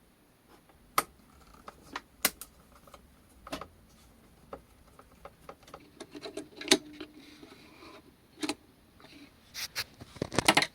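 Irregular sharp clicks and small metallic clinks of hand tools working on a transistor radio's circuit board while solder is removed from the band-switch pins, ending in a quick run of clicks.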